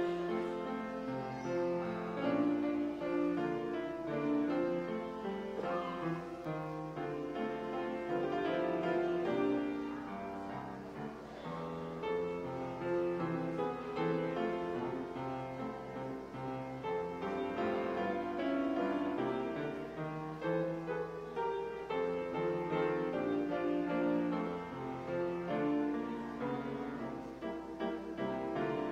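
Grand piano playing a piece of sustained chords.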